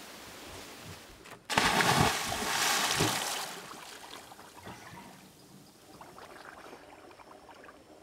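Water splashing and sloshing, starting suddenly about a second and a half in, then fading over a couple of seconds to a faint wash.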